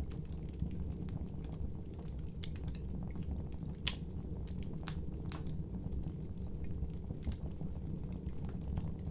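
A wood fire burning, with a steady low rumble and scattered small crackles, and a few sharper pops near the middle.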